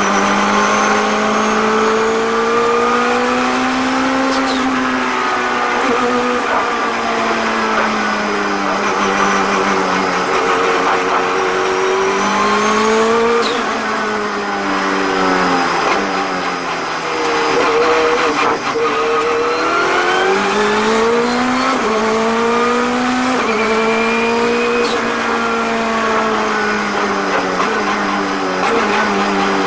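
Turbocharged Honda K22 four-cylinder race engine under hard acceleration, heard from inside the cockpit. Its note climbs and steps down through upshifts, drops in pitch near the middle as the car slows, then pulls up again through a run of quick upshifts.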